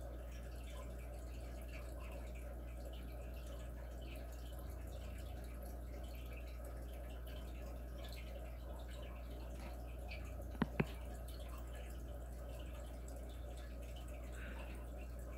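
Steady room noise with a low hum. Two quick sharp clicks come close together about ten and a half seconds in.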